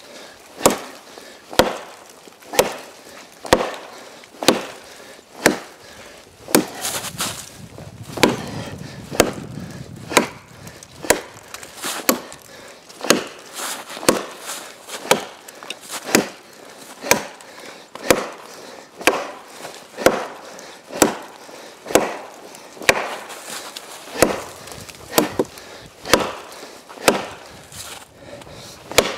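A mini parang chopping a frozen ash log, with sharp wooden chops in a steady rhythm of about one blow a second.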